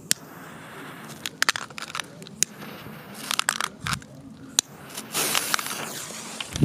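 Firecrackers going off: an irregular series of sharp cracks and pops, a dozen or so spread out, with a denser crackling stretch about five seconds in.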